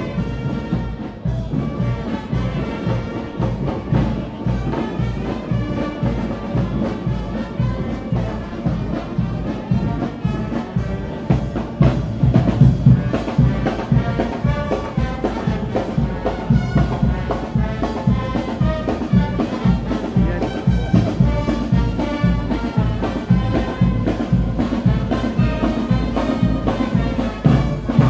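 Brass band playing a parade march for a Moors and Christians procession, horns over a steady drum beat, louder from about twelve seconds in.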